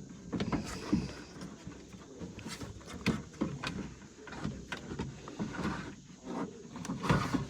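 Door lock actuator being slid around inside a pickup's door shell, with irregular clicks, knocks and scraping of plastic and metal as it is worked into place.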